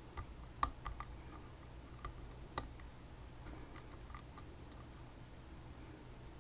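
Scattered light metallic clicks and ticks from picking tools working inside a ChiLock, a Chinese copy of a BiLock lock: several close together in the first second, a sharp one a little later, then softer ticks.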